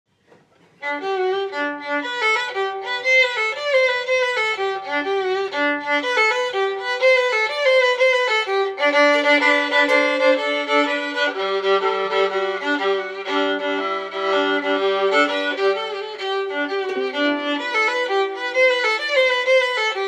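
Instrumental background music starting about a second in: a melody of held notes with a slight waver over a lower accompaniment.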